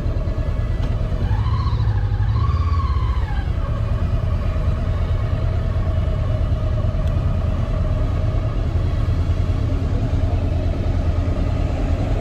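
Motorcycle riding at road speed: a steady low engine and wind rumble. About a second in, a higher whine rises and falls twice.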